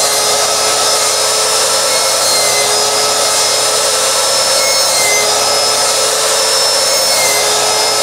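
Electric miter saw running at speed with a steady whine, its blade slicing through a green bell pepper and the wooden stick inside it.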